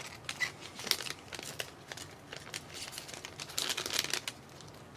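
Foil card-pack wrappers crinkling and tearing as trading-card packs are opened by hand, in short irregular crackles.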